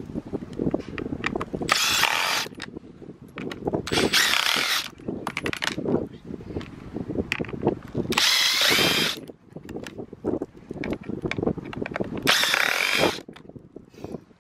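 Power drill with a T20 Torx bit backing screws out of a plastic grille, running in four short bursts of about a second each with a whine that dips and rises. Small knocks and rattles come between the runs.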